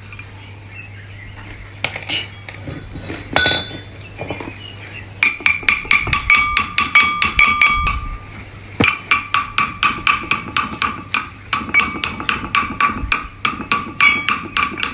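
Hammer blows on metal during hand assembly of a center pivot gearbox: a few scattered knocks, then, about five seconds in, a fast run of ringing metallic strikes, about five a second, that stops briefly twice and carries on.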